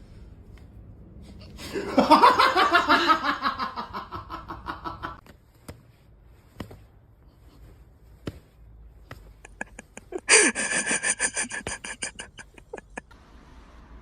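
People laughing in two bouts of rapid pulses: one starting about two seconds in and lasting a few seconds, and a higher, brighter one about ten seconds in. A few short clicks fall in between.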